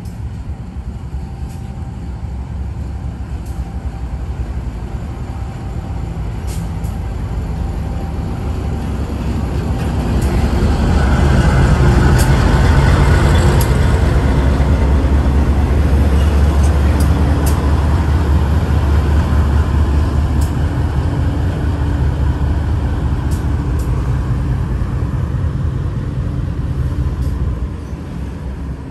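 Diesel freight locomotive running past under power: the engine rumble builds over the first ten seconds, stays loud, then drops off near the end, with a few sharp clicks along the way.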